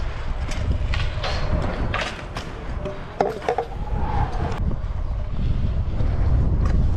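Kick scooter wheels rolling fast over skatepark concrete, with wind rushing on the rider-mounted microphone and a few sharp clacks as the wheels hit joints and cracks.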